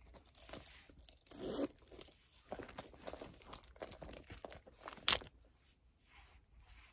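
Hands handling and setting down small leather pouches and wallets, with soft rustling and light clicks of their metal hardware, and one sharper click about five seconds in.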